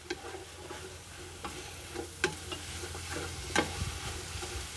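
Sliced onions sizzling in oil in a large cooking pot as a wooden spatula stirs them. A few sharp knocks and scrapes of the spatula against the pot stand out, the loudest a little over two seconds in and about three and a half seconds in.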